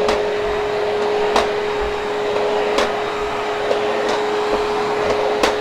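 Hoover HushTone vacuum cleaner running steadily on carpet, with a steady whine over the airflow noise and sharp clicks about every second and a half.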